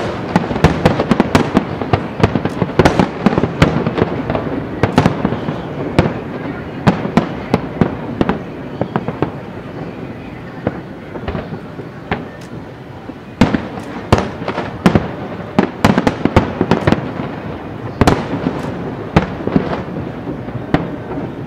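Aerial fireworks shells bursting in quick succession: a dense run of booms and crackles. It is thickest in the first few seconds and again through the second half, with a lull in the middle.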